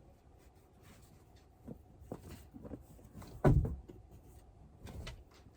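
A few soft knocks and thuds, the loudest one about three and a half seconds in, over a low steady rumble.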